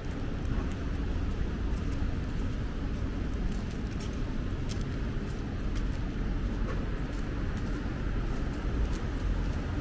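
Ambience of a wet city street: a steady low rumble of traffic, with scattered faint sharp ticks throughout.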